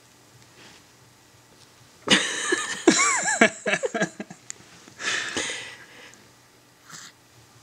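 A baby's squeaky, wavering grunts and strained breaths while stretching, in a long burst about two seconds in and a shorter breathy one about five seconds in.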